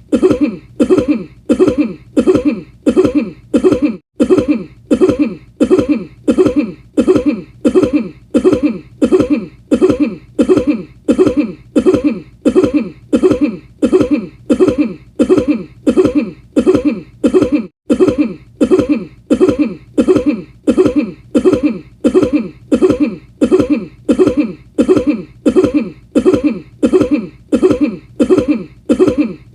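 A single cough repeated over and over as a loop, about three coughs every two seconds at a perfectly even pace, the sound cutting out for an instant twice.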